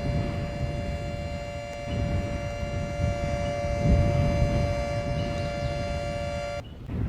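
A siren sounding one steady held tone, over wind buffeting the microphone; the tone cuts off abruptly near the end.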